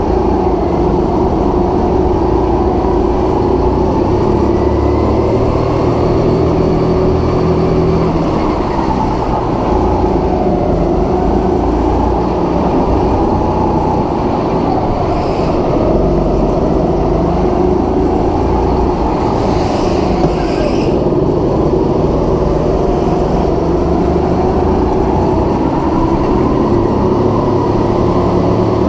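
Go-kart engine running under load, its pitch rising and falling with the throttle through the corners.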